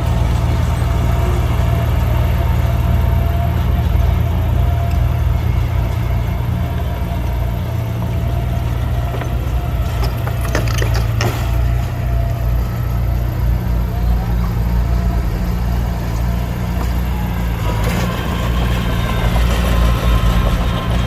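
Heavy diesel engine of construction machinery running steadily with a deep rumble, with a few sharp knocks about halfway through.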